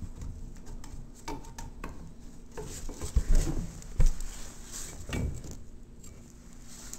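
Irregular knocks, scuffs and scraping as a cut piece of wood is handled and shifted into place, with two sharper thumps about three and four seconds in.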